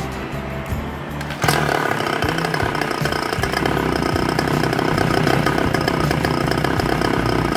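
The go-kart buggy's small petrol engine idles, then is revved up sharply about a second and a half in and held at high revs, with the throttle worked by hand at the carburettor.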